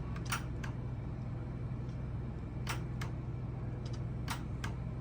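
Sharp ticks, mostly in pairs about a third of a second apart, repeating every second or two over a steady low electric hum.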